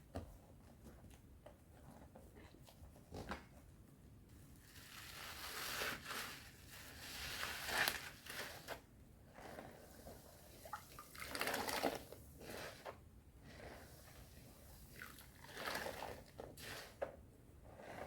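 A bar of soap being lathered in thick, wet foam with added powder: soft squishing, crackling lather in swells of a few seconds each, with quieter gaps between. The first few seconds are quiet, with only a few small clicks.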